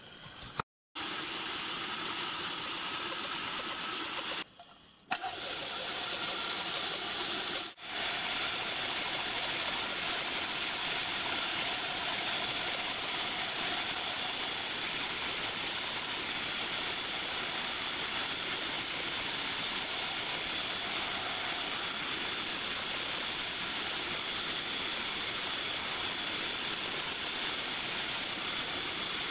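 Milling machine running with a small end mill cutting into a bronze cylinder end cover: a steady machine whine with several held tones, cut by a short silence about a second in and two brief dips soon after.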